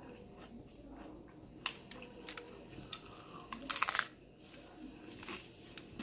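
Close-up eating sounds of a crunchy corn taco: chewing with scattered crackles, then a burst of loud crunches about four seconds in as a fresh bite is taken.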